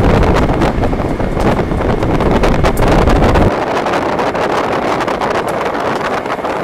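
Wind buffeting the microphone: a heavy low rumble that drops away abruptly about three and a half seconds in, over a steady outdoor hiss.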